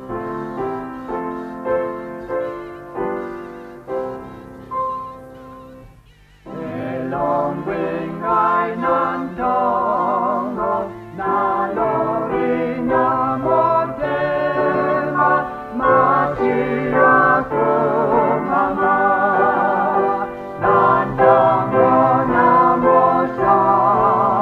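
Gospel hymn: a keyboard plays a short chordal introduction, and about six seconds in, voices come in singing with vibrato over the keyboard accompaniment.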